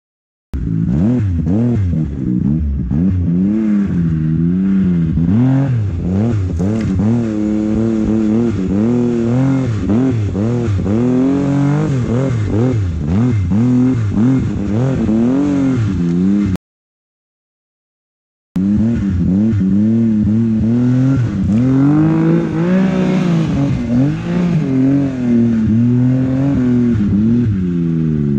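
Snowmobile engine revving up and down in quick, repeated swells as the throttle is worked through deep powder, with track and snow noise underneath. The sound cuts out completely for about two seconds midway, then the revving resumes.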